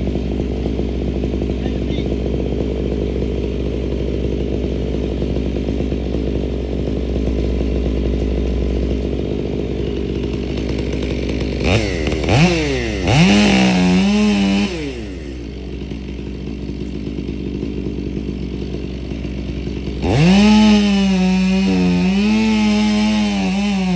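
Chainsaw engine idling, revved up to full throttle for a few seconds about halfway through, dropping back to idle, then revved up again near the end and held high with the pitch wavering.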